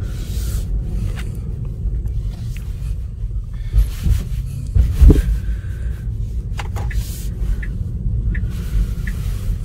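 Steady low road and tyre rumble inside the cabin of a moving 2020 Tesla Model 3, with no engine note, and two louder low thumps about four and five seconds in.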